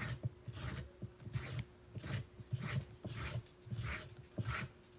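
Vegetable peeler scraping ribbons off a raw carrot, one stroke after another, nearly two a second, each a short rasp with a light knock of the carrot on the cutting board.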